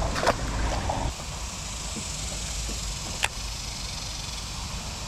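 A small fish drops back into the water with a short splash, followed by steady wind and water noise and one sharp click about three seconds in.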